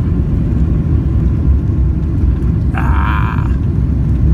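Steady low rumble of engine and airflow noise inside an airliner's cabin during its landing approach. A brief higher-pitched wavering sound cuts in about three seconds in.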